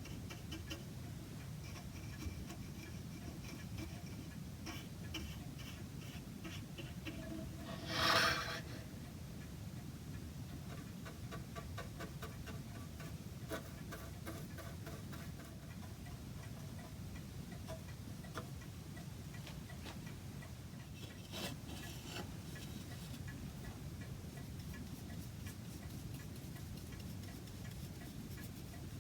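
A clock ticking faintly and steadily over a low room background, with a brief, louder scraping noise about eight seconds in and a smaller one a little past twenty seconds.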